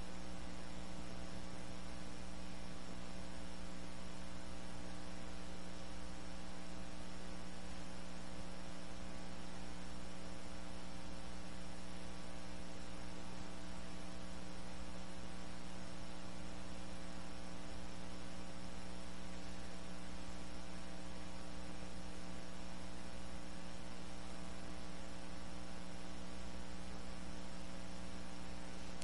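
Steady electrical hum with higher buzzy overtones over a soft hiss, unchanging, with nothing else standing out.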